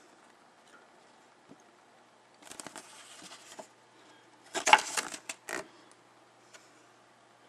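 Glossy paper pages of a booklet being turned by hand: a short rustle about two and a half seconds in, then a louder, crackling page turn around the middle.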